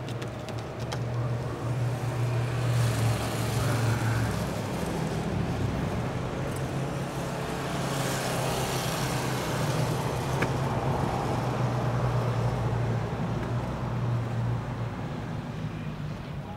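Road traffic: a steady low drone with vehicles passing by, swelling around three seconds in and again around eight seconds in.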